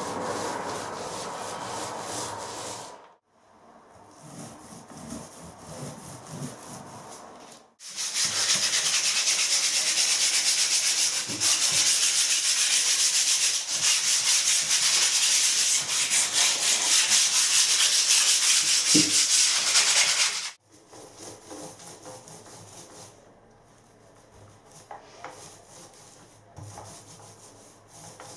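Sanding the filled plaster and boxing: a steady, scratchy abrasive hiss that starts about 8 seconds in and stops abruptly about 12 seconds later, with quieter handling knocks before and after.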